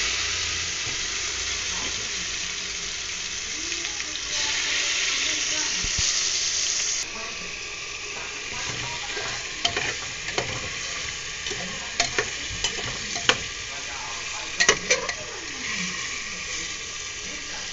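Chicken pieces sizzling loudly in hot oil in a pressure cooker pot, with the sizzle easing a little about seven seconds in. From about ten seconds in, a metal spoon stirring the chicken knocks and scrapes against the pot in sharp clicks.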